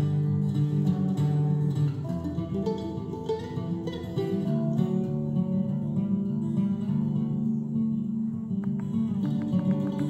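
Instrumental guitar music played back through a pair of Sonodyne Sonus 3260 two-way bookshelf speakers driven by a Fosi Audio BL20A amplifier, heard in the room.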